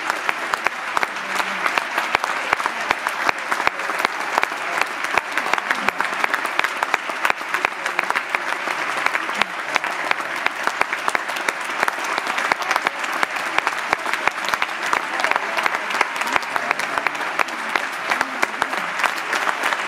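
A large audience applauding steadily: a dense, even clatter of many hands clapping that neither swells nor fades, with a few voices mixed in.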